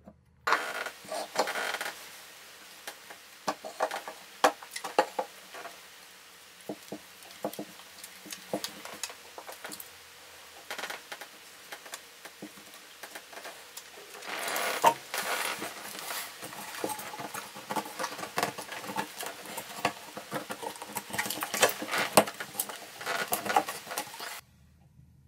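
Close handling noise of greasing drain parts: fingers scooping plumber's grease from a small plastic jar and rubbing it over a rubber drain gasket and the brass drain body, giving a run of irregular small clicks, taps and scrapes. It is busiest in the first couple of seconds and again through the second half.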